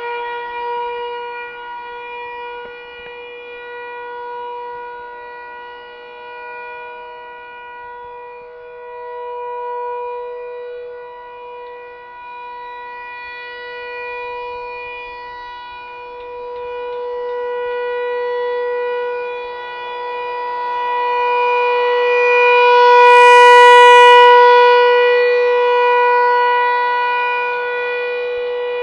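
ASC T-128 outdoor warning siren sounding a steady wail at full speed. Its pitch holds steady while the sound swells and fades every few seconds as the rotating horn sweeps around, loudest about three-quarters of the way through.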